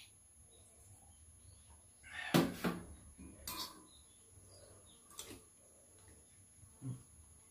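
People eating at a meal: a few short sniffs and mouth noises a second or two apart, the loudest a little over two seconds in.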